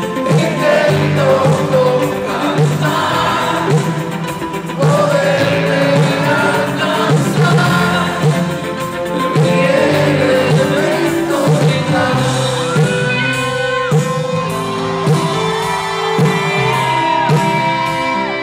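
Live rock band playing a song with a lead singer, recorded from within the audience in a large hall, with shouts from the crowd mixed in.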